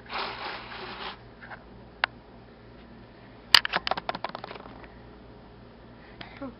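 Bedding and fabric rustling with handling noise: a rustle in the first second, a single tap at about two seconds, then a sharp knock about three and a half seconds in, followed by a quick run of small clicks.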